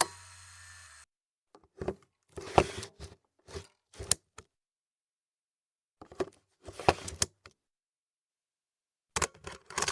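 Digital audio tape recorder's mechanism clicking and clunking: a faint hum for about the first second, then dead silence broken by three clusters of short mechanical clicks and knocks.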